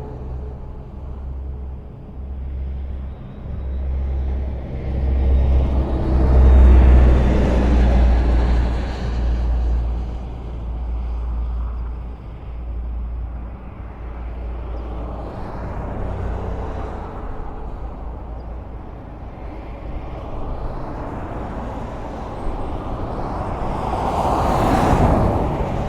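Highway traffic: a continuous low rumble of vehicles passing. One swells to its loudest about seven seconds in, and another sweeps past near the end.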